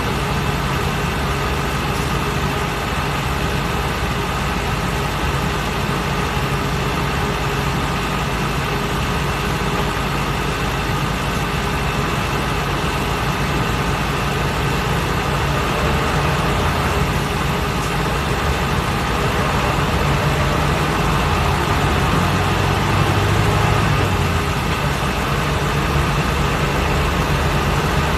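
Mitsubishi Fuso Aero King double-decker bus driving along, heard from inside on the upper deck: a steady engine hum mixed with road and tyre noise. The engine grows a little louder around two-thirds of the way through, then eases back.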